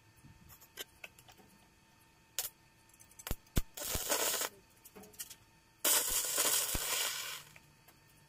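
Stick (arc) welding: two short tack welds, a crackling, hissing arc of about half a second and then one of about a second and a half. A few sharp clicks come just before the first weld.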